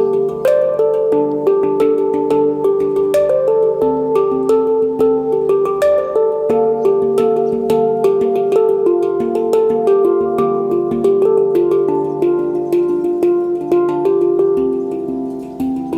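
Background music: a run of quick notes over held tones.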